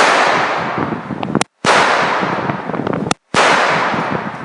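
Three gunshots at a shooting range, roughly a second and a half apart. Each ends in a long ringing echo that fades over more than a second.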